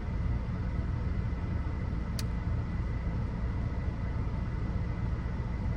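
Steady low rumble of a car heard from inside the cabin, with one brief click about two seconds in.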